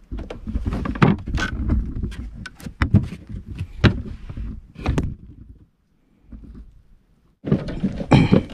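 Knocks, thumps and rustling from handling a freshly caught grouper on a small wooden boat, with a dense run of sharp knocks for about five seconds. Then a brief near-silent pause, and a short loud burst of rustling and knocks near the end.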